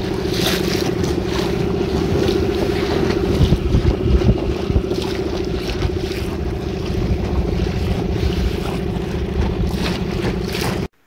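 Boat motor running at a steady pitch while under way, with wind buffeting the microphone and water rushing past. The sound cuts off abruptly near the end.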